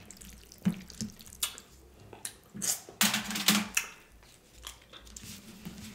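Close-miked wet eating sounds from a mukbang of birria tacos: chewing and squishy mouth sounds, with several short, sharp sounds spread a second or so apart.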